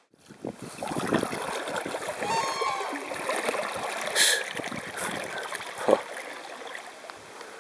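Double-bladed kayak paddle strokes splashing and water rushing against the kayak close to a deck-mounted microphone. The noise begins suddenly, with a brighter splash about four seconds in and a sharp knock near six seconds.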